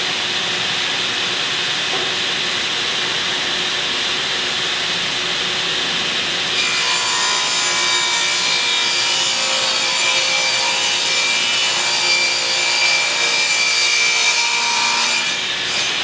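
Ridgid R4512 table saw running with a Ridgid wet/dry shop vac drawing from its dust port. About six and a half seconds in, the blade bites into a board for a rip cut, and a harsher, brighter cutting noise lasts about nine seconds before the board clears the blade.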